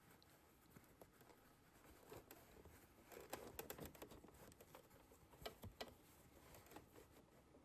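Near silence with faint, scattered clicks and light rustling of handling, no steady sewing-machine run.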